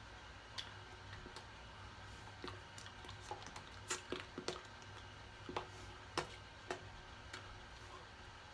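Irregular soft taps and clicks of hands and fingers striking each other during signing, a dozen or more scattered through, busiest and loudest in the middle, over a steady low hum.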